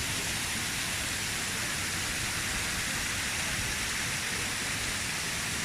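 Steady rush of water from Shiraito Falls, a low, wide curtain of many thin streams spilling over rock. It is an even hiss, bright rather than deep, with no lull.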